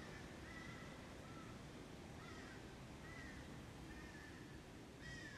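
Faint outdoor bird calls: a series of short calls, roughly one a second, over a steady low background rumble.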